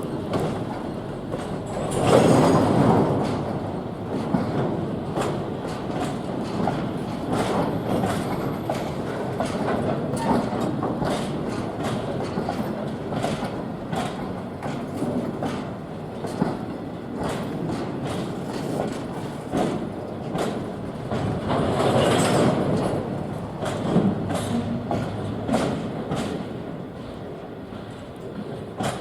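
Freight train wagons rolling past, wheels clicking over rail joints in a continuous run. There are louder swells about two seconds in and again about twenty-two seconds in, and the sound fades toward the end.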